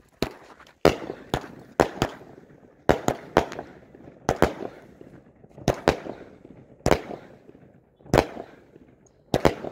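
Happy Family XTEAM 16-shot 200-gram consumer firework cake firing: a string of sharp bangs as the tubes launch and the shells burst, about one or two a second and sometimes in quick pairs, each with a short echo.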